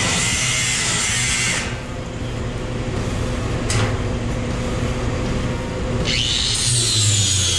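Air-powered die grinder grinding welded-over holes smooth on a steel truck firewall: a rasping metal-on-abrasive noise with a thin whine. About six seconds in, a new whine starts and slowly drops in pitch as the tool loads up.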